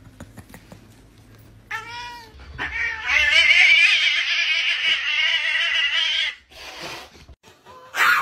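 Domestic cat calls: one short meow about two seconds in, then a loud, long, raspy yowl lasting about three seconds, and a brief call near the end.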